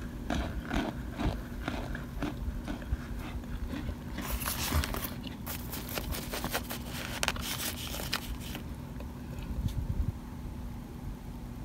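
Plastic spoon scooping and crushing chunks of baked cornstarch in a glass bowl: a run of soft crunches and scrapes, densest and crackliest from about four to nine seconds in.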